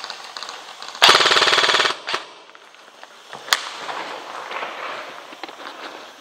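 Airsoft electric gun firing one full-auto burst lasting about a second, a fast even rattle of shots. A few single sharp cracks follow.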